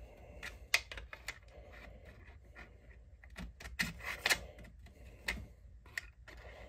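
Scattered light clicks and taps of a wooden ramrod with a brass tip being worked into the thimbles and ramrod channel of a flintlock rifle stock. Its fit is being tested against thimble screws that reach slightly too far into the channel.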